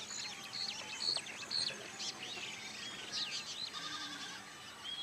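Many small birds chirping and calling over one another in a busy chorus of quick, high chirps and short whistles.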